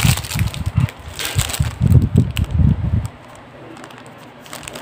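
Handling noise on the phone's microphone: a run of low, irregular thuds and rustling that stops about three seconds in.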